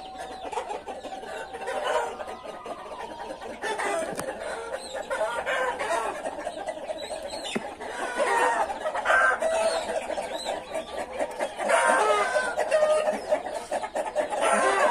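A flock of chickens clucking and calling, many birds at once and overlapping, growing louder after the first few seconds.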